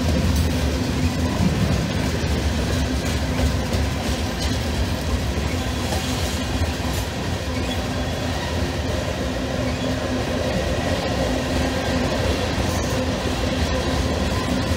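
A CSX mixed freight train's tank cars rolling past at close range: a steady rumble of steel wheels on the rails, heaviest in the low end, with a few faint clicks.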